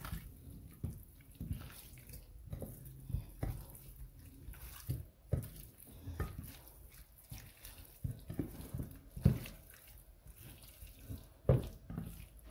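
Hands massaging dry spices into raw chicken pieces: irregular wet squishing and slapping, with two louder slaps about nine and eleven and a half seconds in.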